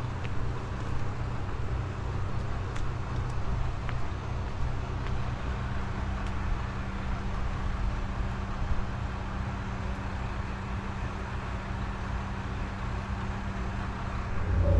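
An engine idling steadily, a low even hum, with a few faint clicks over it.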